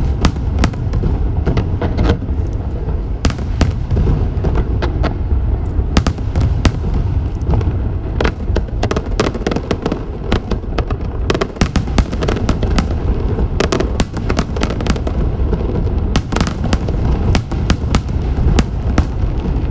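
Fireworks display going off in a continuous barrage: a steady low booming with many sharp cracks in quick succession.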